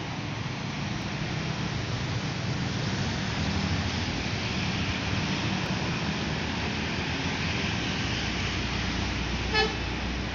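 Road traffic passing, with a Mercedes-Benz OH 1526 coach's diesel engine running as it drives close by. A single short horn toot sounds near the end.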